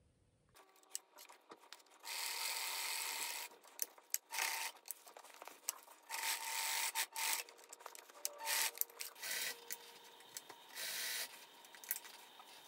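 Bernina sewing machine stitching in several short runs, with a steady whine under each run, and clicks and rustling from the crinkly surgical-wrap fabric being handled between runs.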